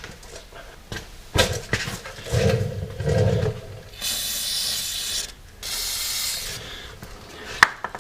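Two short bursts of aerosol penetrating-oil spray hissing, each about a second long, about halfway through. Before them come a few clicks and low rumbling sounds.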